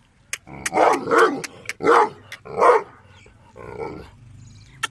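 Gull Dong barking: four loud barks in quick succession over the first three seconds, then a weaker one about four seconds in, with several sharp clicks between them.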